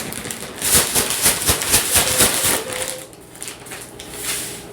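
Large plastic zip-top bag holding granulated sugar and cinnamon being shaken to mix them: a fast, steady crinkling rattle of plastic and sugar that dies down about three seconds in.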